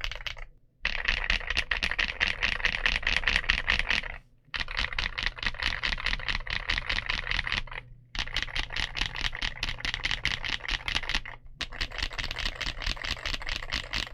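Typing on a mechanical keyboard fitted with Kookaburra frankenswitches: Gateron Blue bottom housings, NK Silk top housings, 63.5 g springs and Huano Blue click-jacket stems, which give a clicky keystroke. The keys go down quickly and steadily in runs, broken by short pauses about every three to four seconds.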